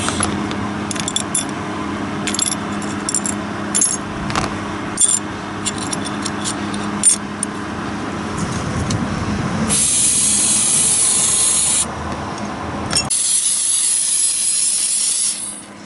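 Small metal carburetor parts clinking and rattling as they are handled, then two long hissing sprays of aerosol carburetor cleaner, each about two seconds, the first about ten seconds in.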